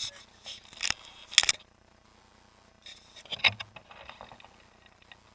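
Sharp clicks, rattles and scrapes close to the RC truck's onboard camera microphone: two loud ones about a second in, then a busier cluster a little after three seconds, with no engine running.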